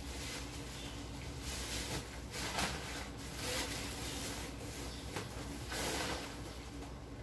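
Saucepan of turmeric and tamarind herbal drink boiling hard on a gas stove, bubbling with irregular surges every second or so over a steady low hum.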